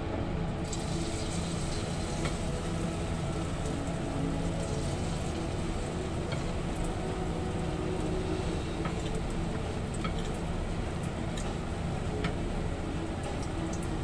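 Battered tempeh slices (tempe mendoan) sizzling and crackling in hot oil in a wok, starting about a second in as the first pieces go into the oil. A steady low hum runs underneath.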